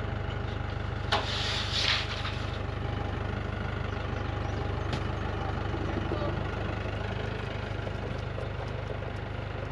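Engine idling steadily with a low, even hum. About a second in there is a loud hiss lasting about a second, and a single sharp click comes about halfway through.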